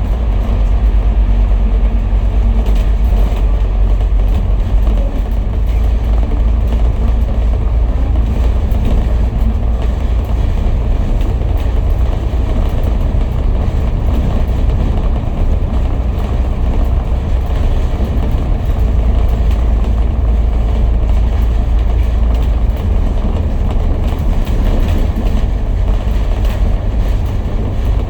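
City bus engine and tyre rumble heard from inside the cabin while cruising, steady and loud throughout.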